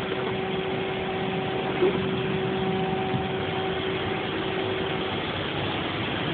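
Steady rush of air-conditioning and ventilation air inside a parked Boeing 757-200's cabin, with a steady low hum running under it. A single short thump about two seconds in.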